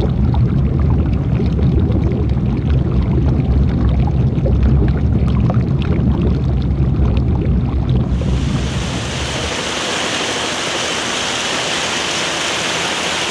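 A loud low rumble, then about eight seconds in a steady rushing of water: a broken 10-inch water main gushing up through cracks in the buckled road surface.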